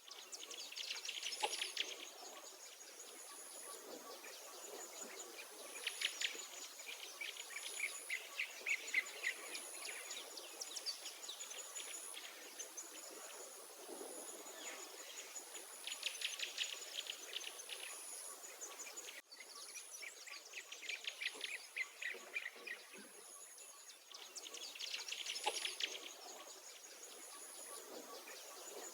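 Songbirds singing in short, rapid trilled phrases every few seconds over a high insect buzz that pulses on and off.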